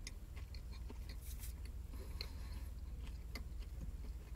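A man chewing a bite of a breakfast sandwich, with small irregular mouth clicks and ticks, over a low steady hum inside a car cabin.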